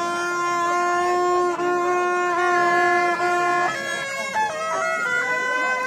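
A shrill double-reed horn, a suona-type shawm, playing a tune of long held notes that step up and down in pitch every second or so.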